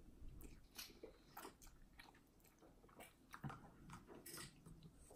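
Faint chewing of a big mouthful of noodles, with scattered soft clicks and taps.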